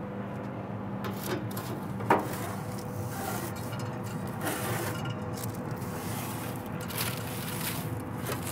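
Metal pizza peel scraping and sliding across the floor of a pellet-grill pizza oven as a calzone is lifted out, with a sharp clink about two seconds in, over a steady hum.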